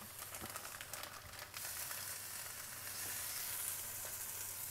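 Curry sizzling in a hot wok as base curry sauce is poured in; the hiss jumps louder about a second and a half in and then holds steady.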